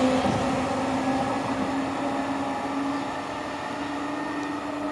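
Trenitalia E.464 electric locomotive and its regional train running away down the line: a steady electric whine over rolling noise, slowly fading as it recedes.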